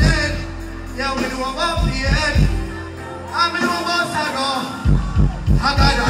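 Live dancehall music through a large PA, with a man singing into a microphone over a heavy bass and drum track. The bass drops out for about a second and a half midway, then returns near the end with a pounding kick drum.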